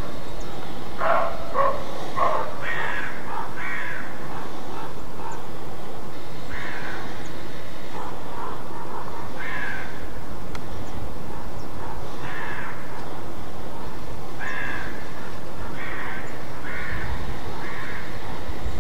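Roe deer barking: a series of short, hoarse barks, several loud ones in the first few seconds, then fainter ones every second or two. This is the alarm bark that hunters call 'Schrecken'. A steady hiss runs underneath.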